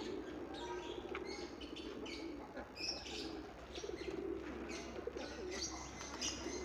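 A flock of pigeons cooing continuously, with smaller birds chirping repeatedly over them.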